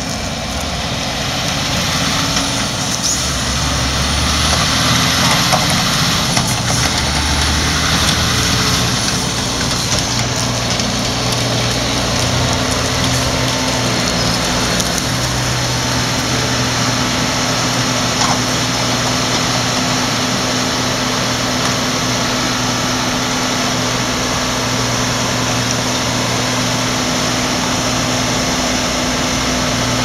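Claas Lexion combine harvesters' diesel engines running at a steady, loud hum.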